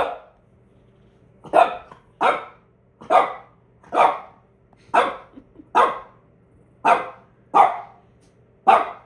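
A dog barking repeatedly, about ten sharp barks a little under a second apart, alert barking at something it has noticed.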